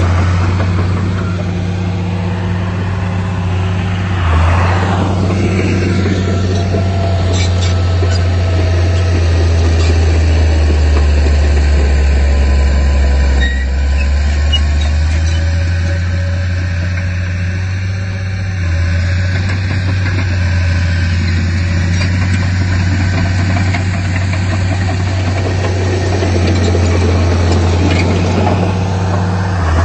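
Heavy diesel engine of earthmoving machinery running steadily: a loud, low drone that sinks a little in pitch partway through, then settles back.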